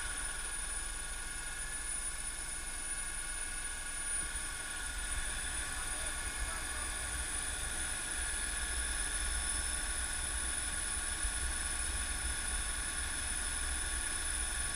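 Helicopter in flight heard from on board: a high, steady turbine whine over a deep, even rotor rumble.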